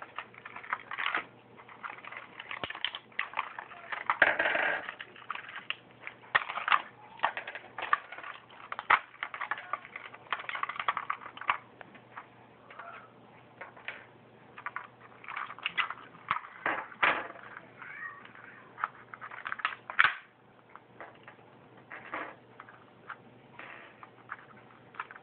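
Stiff clear plastic blister packaging crackling and crinkling as it is pulled open by hand, with irregular clicks and clacks of small metal and plastic Beyblade parts set down on a wooden table.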